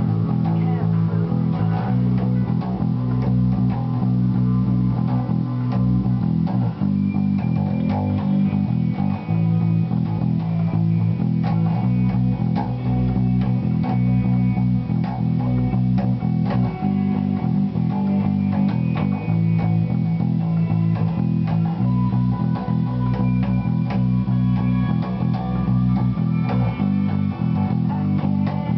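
Thunderbird-style electric bass guitar playing a repeating rock bassline of sustained low notes that change every second or so.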